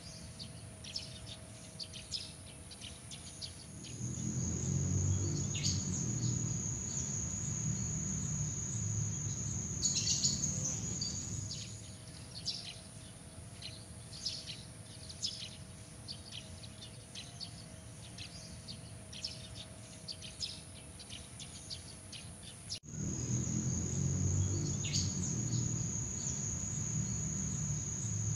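Nature ambience of a steady high insect trill with frequent short bird chirps. A low rumble sets in at times, and the mix changes abruptly a few times, as if edited.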